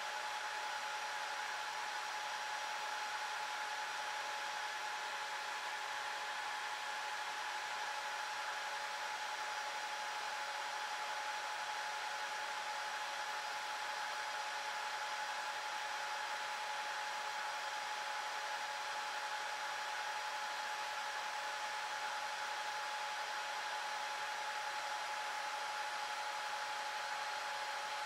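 Dell PowerEdge 2650 rack server's cooling fans running steadily during a slow boot: an even rushing hiss with a constant whine.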